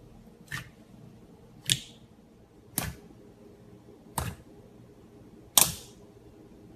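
Slime being pressed and worked with the hands, giving five sharp pops about a second apart, the loudest near the end.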